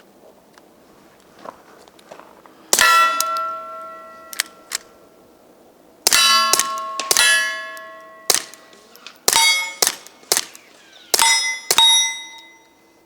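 Suppressed .22 GSG 1911 pistol with a Banish 22 suppressor firing about ten quiet shots, several of the hits ringing loudly off steel targets with long, fading tones.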